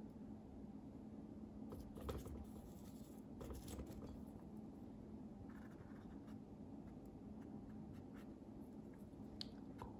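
Faint brushing and scraping of a watercolour brush working on paper and in a paint palette, in scattered short strokes over a low steady hum.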